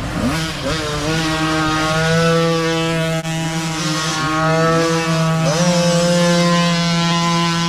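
Several micro dirt bike engines revving hard as the bikes ride past close by. The pitch dips and climbs again twice, about a quarter of a second in and again past two-thirds of the way through, with the throttle.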